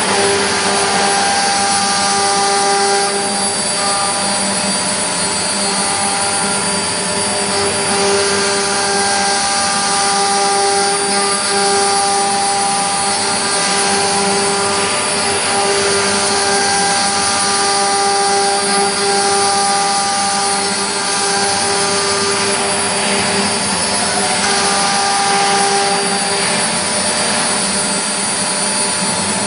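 4-axis CNC milling machine running: a steady machine hiss with a whine of several tones that cut in and out every second or two as the machine moves.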